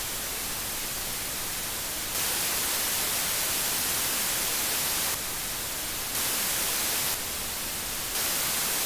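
Amplified self-noise of two USB audio-interface mic preamps: a steady hiss that switches several times between a quieter level, the Rode AI-1 at about −130 dBu equivalent input noise, and a level about 4.5 dB louder, the Roland Capture Duo X. The louder hiss comes in about two seconds in, drops back about five seconds in, and returns around six and eight seconds.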